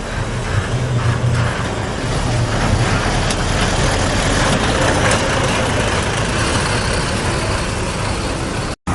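Heavy road vehicle's engine running close by with steady traffic and road noise, cutting off abruptly near the end.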